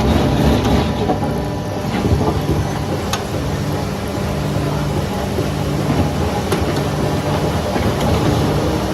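Saw mill machinery running steadily, a low engine-like hum whose pitched tones fade in and out, with a few sharp clicks.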